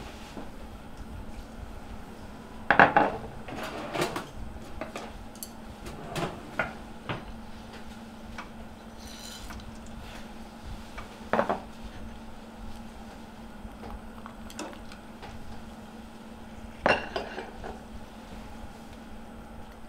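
Metal pot and kitchen utensils clinking and knocking, a handful of separate sharp strikes spread out with pauses between them, over a steady low hum.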